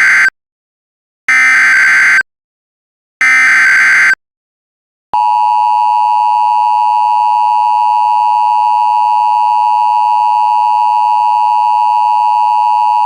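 Emergency Alert System signal: the SAME header's short data bursts (three, the first already under way, about a second apart), then from about five seconds in the steady, piercing two-tone EAS attention signal. Together they announce an emergency alert, here a severe thunderstorm warning.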